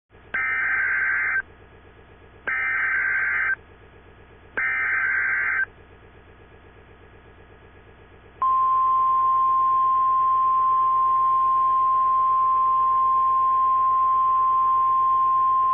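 Emergency Alert System SAME header: three short bursts of warbling digital data tones, about a second each with a second's gap between them. About eight seconds in, a long steady single-pitch alert tone begins, the 1050 Hz weather-radio warning tone that announces an emergency message.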